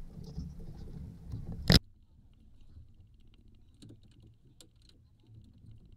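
Wind rumbling on the microphone with water slapping the hull of a small boat, cut short by one sharp, loud knock; after it the sound drops low, with scattered faint small clicks and rattles.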